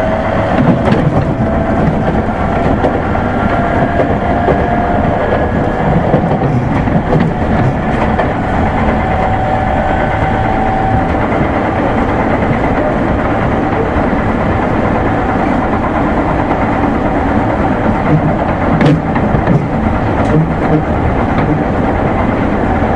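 JR Musashino Line 205-series electric train running along the line: a steady loud rumble of wheels and running gear with a faint whine that drifts slowly in pitch. A sharp knock comes about nineteen seconds in.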